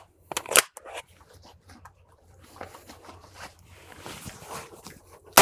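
Clicks and rattles of AR-15 rifles and magazines handled during a magazine change: two sharp clicks about half a second in, then quieter rustling and clicking of gear. The first gunshot cracks right at the end.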